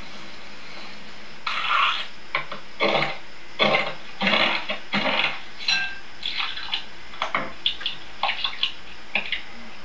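Irregular clatter of kitchen utensils played through a television's speaker: a cleaver chopping a block of chocolate on a board, then a spatula knocking and clinking against a glass bowl.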